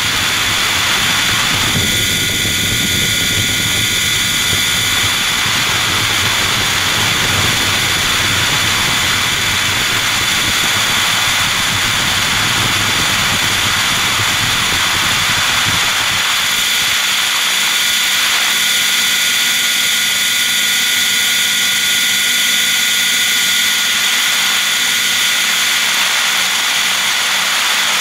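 Radio-controlled helicopter's engine and rotor running steadily in flight, heard close up from the camera mounted on the helicopter: a steady high whine over a noisy drone. About halfway through, the deep rumble underneath drops away.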